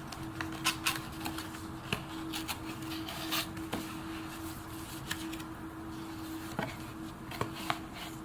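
Small objects being handled: scattered light taps and clicks, a few sharper ones, over a steady hum.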